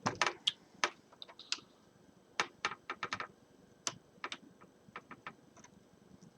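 Irregular sharp clicks and taps of hard plastic: a small tool and the laptop's plastic screen bezel and screw covers being handled. The clicks are loudest near the start.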